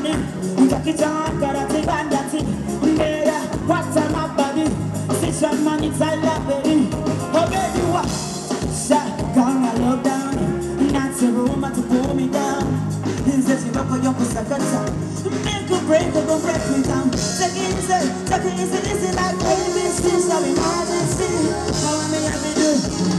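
Live band playing an upbeat song, electric bass and keyboards over a steady drum beat, with a woman singing into a microphone.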